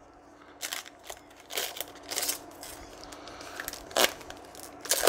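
Foil trading-card pack wrapper being torn open and crinkled by hand: a series of short crackles and rips, the sharpest about four seconds in and near the end.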